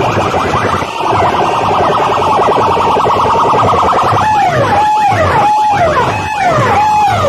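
Competition DJ sound system blasting a siren effect at full volume: first a fast run of rising sweeps, then from about four seconds in a repeating wail that drops and levels off, about once every 0.7 seconds.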